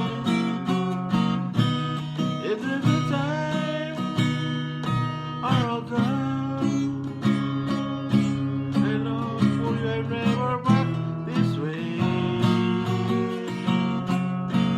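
Acoustic guitar strummed in a steady rhythm, playing the instrumental ending of a folk song.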